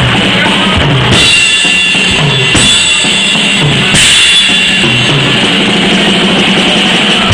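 Drum kit played live and loud, with kick and snare hits under repeated cymbal crashes: about a second in, around two and a half seconds, and four seconds in.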